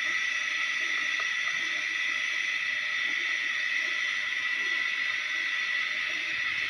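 Steady hiss with a constant high-pitched tone that does not change.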